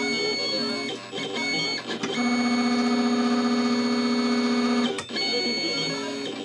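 Silver Bullet craft cutting machine's motors whining in short start-stop moves as it drags its blade through 1mm mountboard, then one longer steady whine from about two to five seconds that ends in a click.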